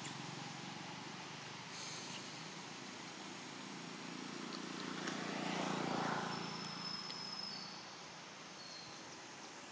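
A motor vehicle passes: its engine sound swells to a peak about six seconds in and then fades, over a steady low engine hum. A few thin, high whistles are heard near the end.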